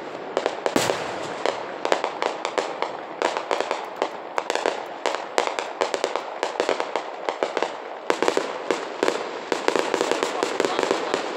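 Fireworks display: rapid, irregular crackling and popping of bursting shells, many sharp reports a second, with a few louder bangs among them.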